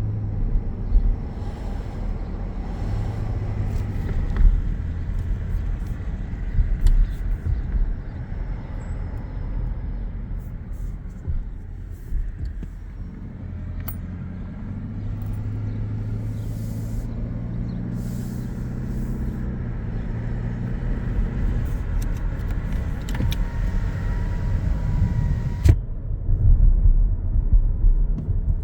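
Road rumble inside the cabin of a 2025 Toyota Grand Highlander Hybrid while driving, with a faint, steady high-pitched electrical whine: the persistent fault the owner is reporting, worst under acceleration. Near the end a brief higher tone sounds and stops with a sharp click.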